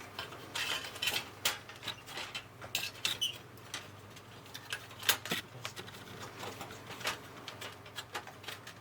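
Faint, scattered clicks, taps and scrapes of a metal ground shield plate being worked into place inside a CRT television, a fiddly fit that needs the plate in exactly the right position.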